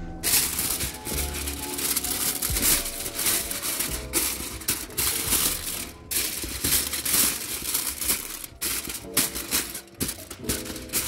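Aluminium foil crinkling and crackling in short, irregular bursts as a hand presses and smooths it against the inside walls of a cardboard box, over background music.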